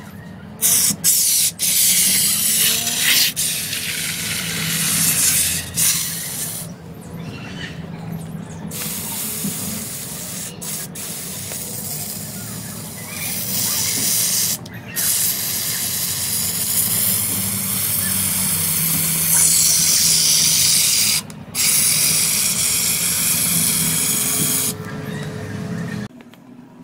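Aerosol can of spray snow hissing as it discharges into a balloon fitted over its nozzle, filling the balloon with foam. The spray comes in long bursts with short breaks, one longer pause about a third of the way in, and stops near the end.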